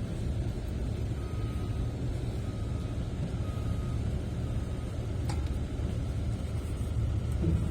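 Steady low rumble of a running engine, with four short faint beeps about a second apart a little after the start and a single sharp click about five seconds in.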